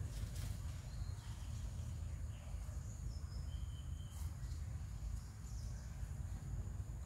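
Outdoor woodland ambience: a steady low rumble with a thin, steady high insect drone and a few short, faint bird chirps, plus a couple of faint clicks.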